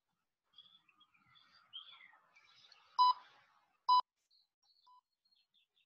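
Three short electronic beeps about a second apart, the first two loudest, from a workout interval timer counting down to the end of an interval. Birds chirp in the background.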